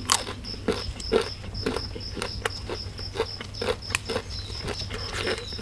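Close-up chewing and crunching of crisp raw vegetables, with irregular crunches about two or three a second. A steady, pulsing high-pitched insect chirp runs underneath.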